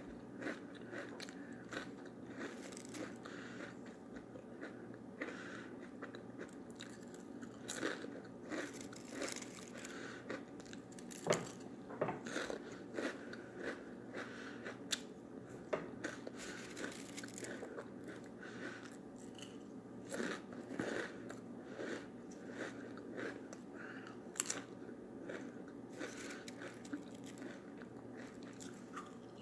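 Close-up crunching and chewing of Utz Ripples original potato chips: irregular crisp crunches, bites and mouth sounds, over a faint steady hum.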